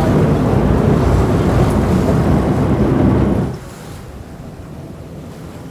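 Wind buffeting the microphone over the rumble of a sportfishing boat and its wake on open water. The sound is loud, then drops suddenly to a much quieter wash about three and a half seconds in.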